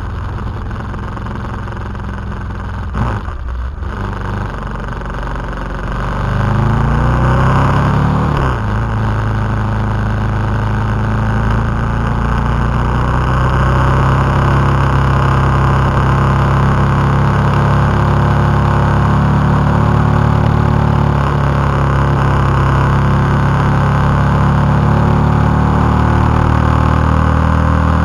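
KTM 990 SMT's V-twin engine pulling the bike along. The revs dip briefly about three seconds in, then climb in a rising whine and drop sharply at a gear change near the nine-second mark, after which the engine runs steadily.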